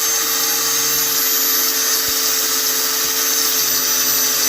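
Electric power tool running steadily, cleaning up an old hammer head: a constant motor whine over a loud, even hiss.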